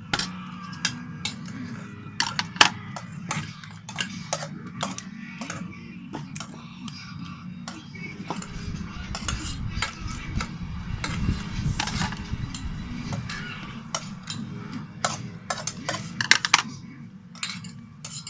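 A utensil clicking and scraping against a container while a fluffy slime mixture is stirred, with many irregular sharp clicks over a steady low hum.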